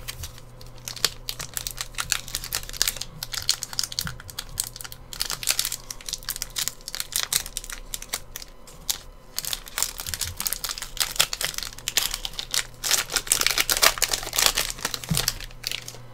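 Foil wrapper of a hockey trading card pack being torn open and crinkled by hand, crackling in irregular spurts, loudest near the end as the cards are pulled out.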